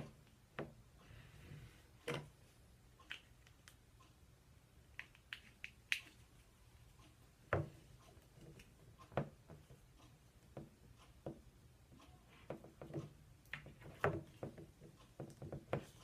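Scattered light clicks, taps and handling rustles as hands work a battery cable, sliding heat-shrink tubing onto it and pushing the stripped wire into the terminal lug. The clicks grow more frequent near the end.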